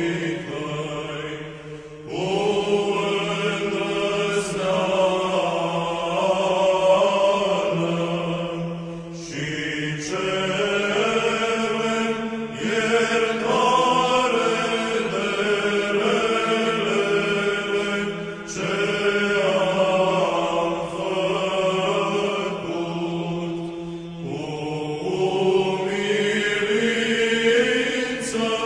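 Orthodox church chant: sung phrases of long held notes, each several seconds long, over a steady low held note.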